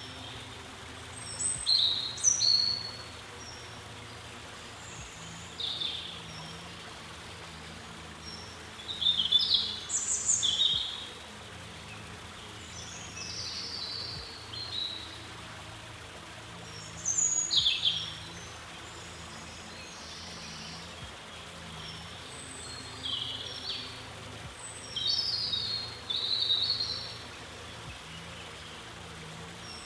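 Birds chirping in short high phrases every few seconds, over a steady low background hum.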